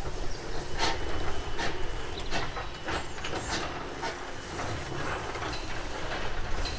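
Hunslet saddle tank steam locomotive pulling away, its exhaust chuffing in a regular beat that quickens slightly as it gathers speed, with steam hissing from the cylinder drain cocks.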